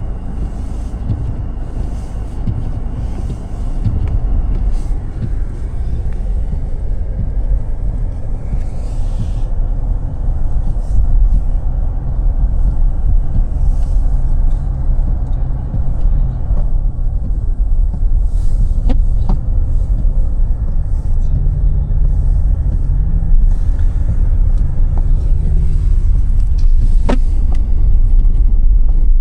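A car driving: a steady low rumble of road and engine noise, growing louder about four seconds in and again about ten seconds in, with a couple of faint short clicks later on.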